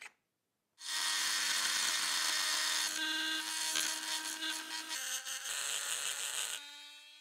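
A small high-speed power tool runs steadily, with a high whine and a hiss of contact, its pitch shifting a couple of times, then is switched off near the end and winds down.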